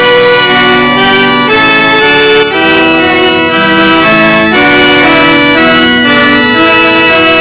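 Loud instrumental music of held, reedy chords that change about every half second to a second, with no singing.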